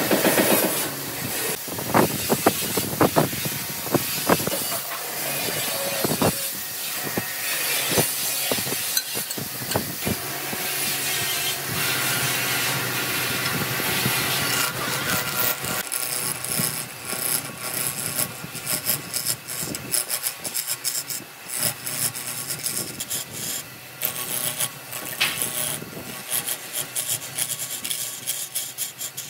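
A tool scraping and cutting into hardwood with an uneven rasping noise. A few sharp knocks come in the first seconds, and in the second half it turns into a run of quick, short strokes.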